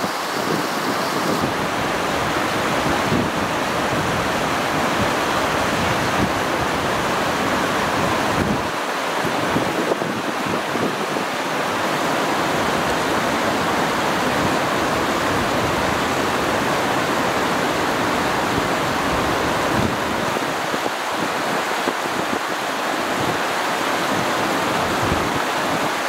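Steady rush of water pouring over the stepped weirs of a fish ladder and churning through a shallow river channel.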